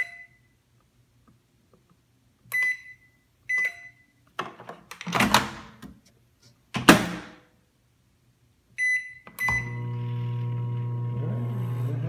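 Microwave oven keypad beeps, then two clattering knocks, likely the door being opened and shut. After two more beeps the microwave starts and runs with a steady, loud electrical hum.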